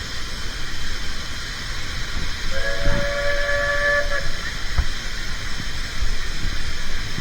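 Narrow-gauge steam locomotive's whistle blown once for about a second and a half, sounding several notes at once, over the steady rushing noise of the moving train. A single short knock follows soon after.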